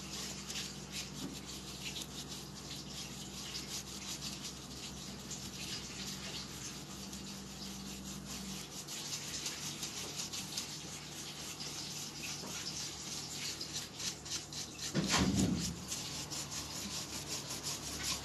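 A stiff brush dry-brushing paint over a rough, textured relief surface: a run of quick, scratchy rubbing strokes. There is a faint steady low hum underneath, and a louder bump about fifteen seconds in.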